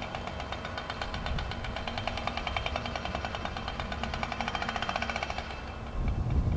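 Mi-26 heavy-lift helicopter in flight: its eight-blade main rotor beats in a rapid, even pulse over a steady turbine whine. Near the end the higher pulsing fades and a louder, deeper rumble takes over.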